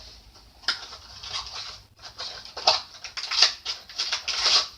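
Packaging being handled and opened by hand: irregular scratchy rustling and crinkling that gets busier and louder in the second half.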